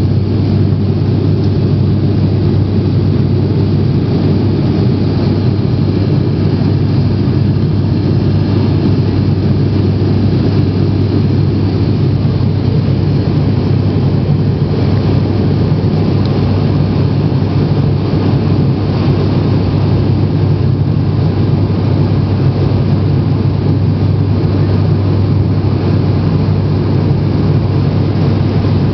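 Steady drone of a turboprop airliner's engines and propellers heard inside the cabin, a low hum under an even rush of air.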